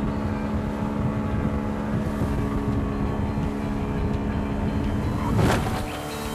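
A dory's outboard motor running steadily at speed, with wind and water rushing past as the flat-bottomed boat runs in through the surf. About five and a half seconds in, there is a brief loud splash of spray over the bow.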